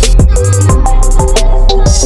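Electronic background music with a steady drum beat and a synth melody.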